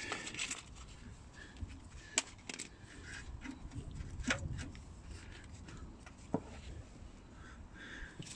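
A few sharp plastic clicks and knocks with faint rustling as the lambda sensor's wiring is tucked into its plastic holder, over a low rumble.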